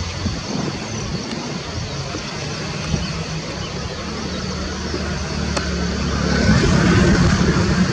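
Steady engine noise with a faint high whine, growing louder over the last couple of seconds.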